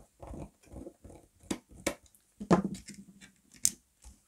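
Irregular small clicks and knocks of plastic parts and a screwdriver as a Torx screw is worked out of a Dyson Fluffy cleaner head, with a few sharper knocks among them.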